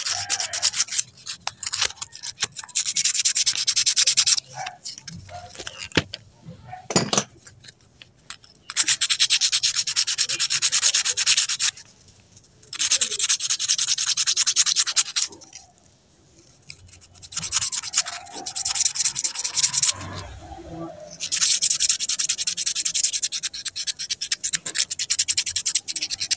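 Sandpaper rubbed rapidly back and forth on a small metal part of a gas stove valve assembly, in several stretches of two to four seconds with short pauses between, smoothing it so nothing snags.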